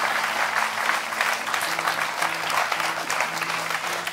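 Studio audience applauding steadily, with music playing held notes underneath.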